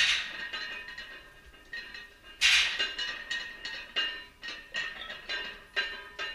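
Music: a tune of sharply struck notes that ring on, coming at an uneven pace, the strongest about two and a half seconds in.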